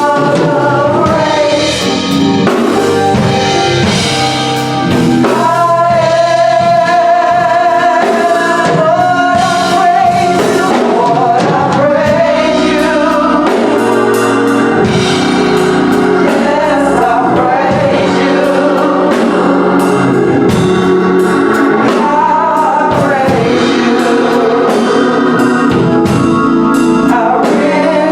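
Gospel song: voices singing long, wavering held notes over drums and backing instruments.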